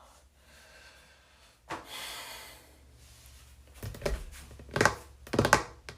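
A person's breathing: a loud breath out about two seconds in, then several short vocal bursts near the end, about half a second apart.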